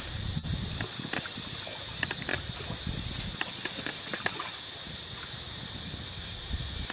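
Water trickling and splashing around macaques wading in a shallow stream, with a few sharp splashes in the first four seconds or so.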